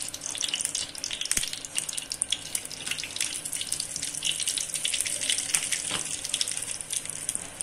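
Hot ghee sizzling in a small tadka pan, a dense crackle of many tiny pops. It grows busier about three seconds in, when asafoetida (hing) goes into the ghee.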